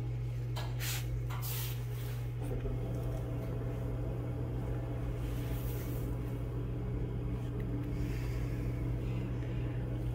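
A steady low hum, with a few brief rustles near the start as a rotted cloth jacket is handled.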